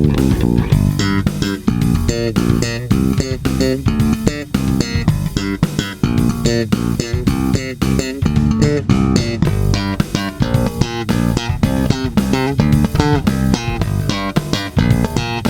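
Ibanez SR500 electric bass played unaccompanied: a quick, busy line of plucked notes with sharp attacks and a full low end.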